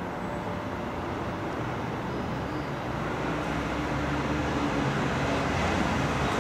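City street traffic: a steady rumble of passing cars, growing slowly louder toward the end as a vehicle draws near.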